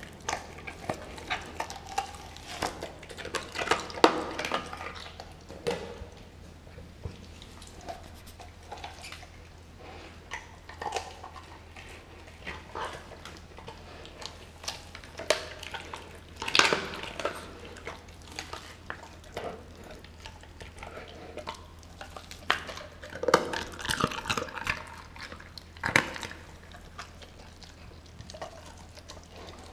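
A Doberman chewing and tearing at a whole raw turkey: wet chewing with irregular sharp clicks and cracks. It comes in flurries a few seconds in, around the middle and again near the end.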